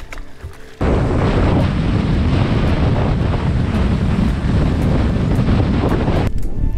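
Wind buffeting the microphone, with rushing water, as a bass boat runs fast across open lake water. The noise starts suddenly about a second in and cuts off near the end.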